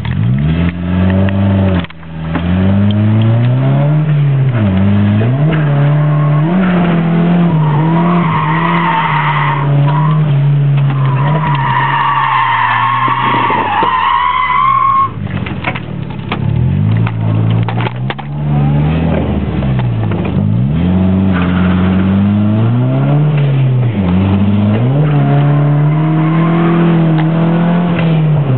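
Nissan 200SX S13 heard from inside the cabin while drifting: the engine revs rise and fall repeatedly through gear changes and throttle lifts, and the tyres squeal in two long stretches about a third of the way in, then more faintly later on.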